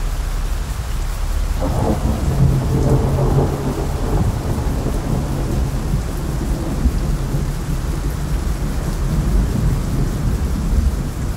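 Steady rain with rolling thunder. A louder thunder rumble swells about two seconds in and dies away over the next few seconds.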